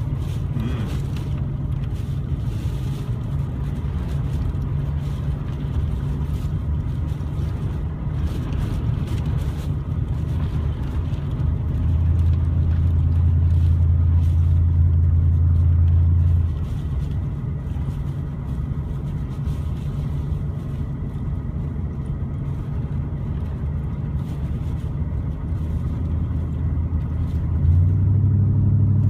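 Motor vehicle engine running with a steady low drone. It gets louder for a few seconds about twelve seconds in, then eases back, and rises again near the end.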